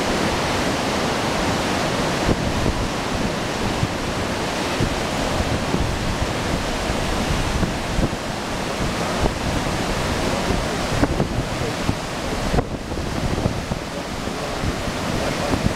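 A river in flood, fast water rushing steadily, with gusts of wind buffeting the microphone in irregular low thumps.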